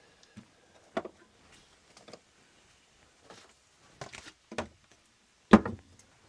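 Scattered clicks and clunks of cookware and utensils being handled in a small camper kitchen, about half a dozen separate knocks at uneven spacing, the loudest about five and a half seconds in.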